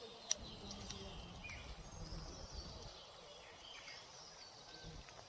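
Quiet outdoor ambience with faint, scattered bird chirps and a steady low background hum. There is one sharp click about a third of a second in.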